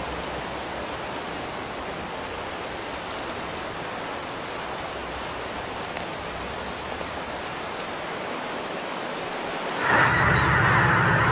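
Steady rain: an even hiss with scattered drop ticks. About ten seconds in it cuts suddenly to a large flock of geese honking, much louder.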